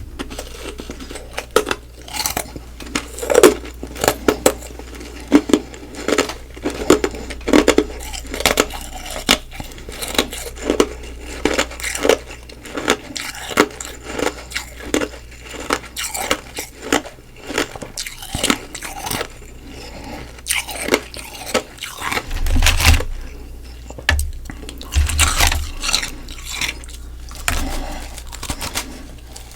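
Close-miked chewing of frozen humidifier frost ice, a continuous run of quick, crackly crunches, with a few low thumps near the end.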